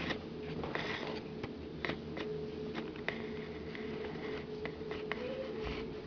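A puppy moving about on a hard surface: scattered light clicks and scratches of its paws and claws, with a faint brief squeak about five seconds in, over a steady low hum.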